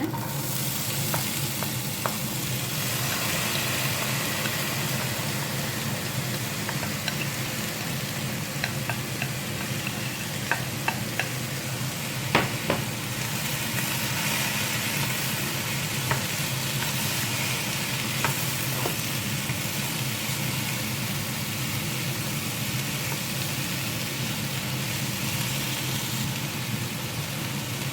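Chopped potatoes frying in olive oil in a pan, a steady sizzle, with a few short clicks of a utensil against the pan, the loudest about twelve seconds in.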